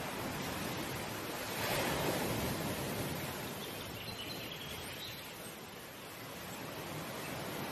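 A steady rushing, surf-like noise that swells about two seconds in, ebbs again and rises once more near the end.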